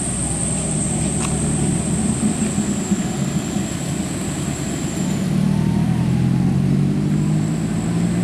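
Road traffic moving slowly uphill: motorcycle engines and a heavy diesel truck engine running together as a steady drone that grows louder about five seconds in.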